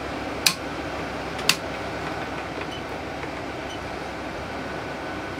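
Two sharp clicks about a second apart from a 1/2-inch, 40–200 N·m click-type torque wrench breaking over on a torque tester, each click the sign that the wrench has reached its set torque. A steady fan hum runs underneath.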